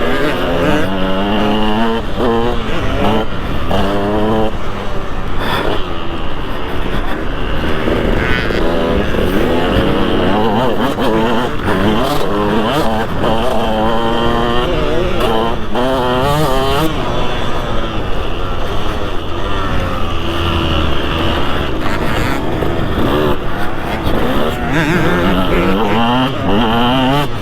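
2003 KTM 200 SX single-cylinder two-stroke motocross engine being ridden hard, its pitch repeatedly climbing as the throttle is opened and dropping back between bursts.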